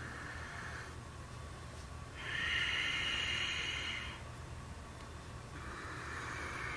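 A yoga practitioner's slow, audible breaths moving between poses: three long hissing breaths, the middle one the loudest, over a faint steady low hum.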